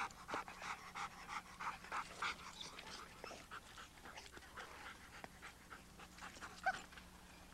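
Malamute-type sled dog panting in quick, regular breaths, about two a second, growing fainter toward the end, with a short squeak about two-thirds of the way through.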